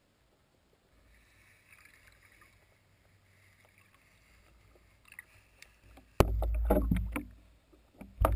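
Muffled underwater sound from a GoPro held upside down under a capsized RC floatplane. At first there is only a faint hiss, then a few knocks about five seconds in. About six seconds in loud, low sloshing and buffeting of water against the camera starts suddenly, and it comes again near the end.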